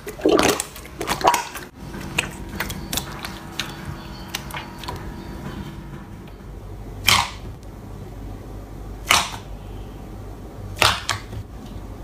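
Hands squishing thick slime: dense wet crackling for the first second or two. Then a hand pushing into a tub of slime, with three loud pops about two seconds apart.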